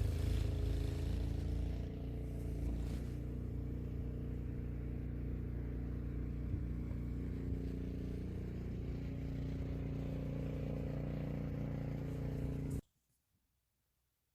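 A vehicle engine running steadily, with no revving. The sound cuts off abruptly near the end.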